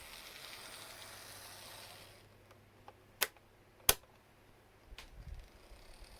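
Small hand-held mechanism work on an N-gauge model locomotive: a soft steady hiss that stops about two seconds in, then two sharp clicks a little under a second apart and some light handling.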